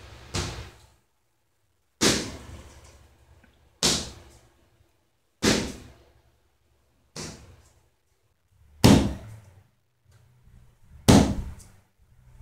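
Boxing gloves striking padded focus mitts, one punch at a time: about seven sharp smacks spaced roughly one and a half to two seconds apart, the hardest two near the end.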